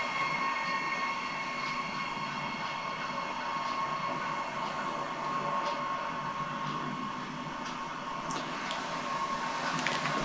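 A train running: a steady rolling noise with a held high tone throughout.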